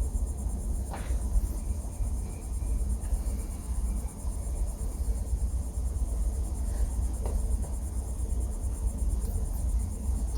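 Steady low rumble with a continuous high-pitched chirring trill above it, and a couple of faint knocks.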